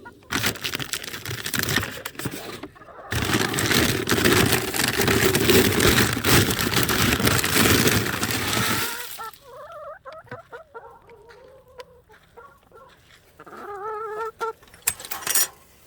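Loud rustling noise for about the first nine seconds, then chickens clucking with short wavering calls.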